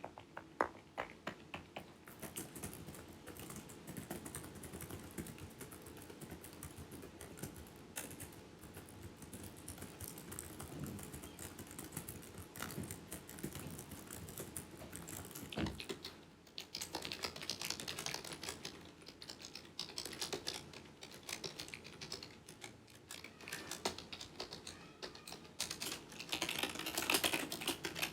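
Continuous rapid typing on a computer keyboard: soft, muffled key presses at first, then about halfway through the typing turns louder, with sharper, clickier keystrokes.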